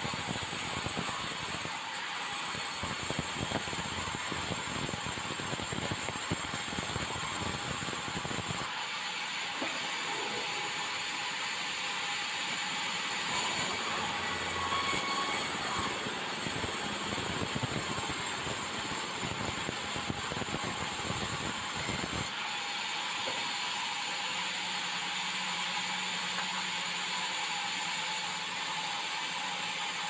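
Sawmill band saw cutting a bengkirai timber into a beam: a steady, high sawing noise with a dense crackle. The low rumble drops away abruptly about 9 s in and again about 22 s in.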